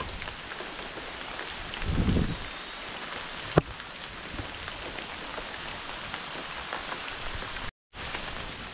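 Steady rain falling, an even hiss dotted with many small drop ticks. A low thump comes about two seconds in and a single sharp click about three and a half seconds in, and the sound cuts out briefly near the end.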